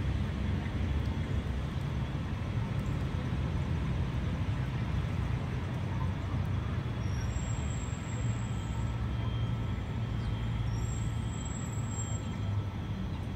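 Steady low rumble of outdoor city ambience, made up mostly of distant road traffic.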